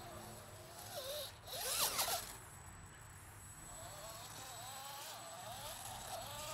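Dual 35T brushed electric motors of an RC4WD Bully 2 rock crawler whining, the pitch wavering up and down with the throttle as it crawls over boulders. A brief loud rasping scrape comes about two seconds in.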